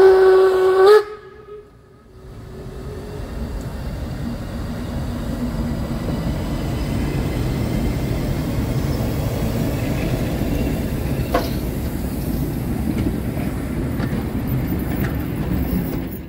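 Steam locomotive whistle sounding one loud blast of about a second. After a short pause comes the steady low rumble of the train running, building over a few seconds and then holding.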